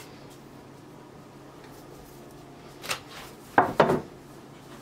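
Metal baking tray moved and set down on the counter: a light clack, then two loud knocks in quick succession about three and a half seconds in, over a faint steady hum.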